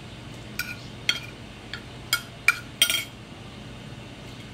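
Metal cutlery clinking against a plate, about six clinks over the first three seconds, each with a short ring.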